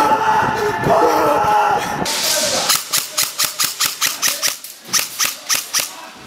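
Airsoft gun fired in a rapid string of about fifteen sharp shots, five or six a second, starting a little under three seconds in. Before the shots, voices are shouting.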